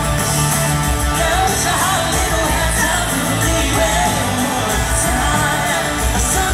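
Live band music: a male lead singer sings over strummed acoustic guitar and a full band with bass and drums.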